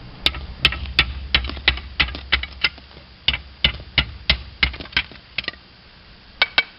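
Slate shingle being trimmed with a slater's hammer, its edge chopped off against another piece of slate used as a stake: a run of sharp, irregular clicks, about three or four a second, with a short pause near the end before two more.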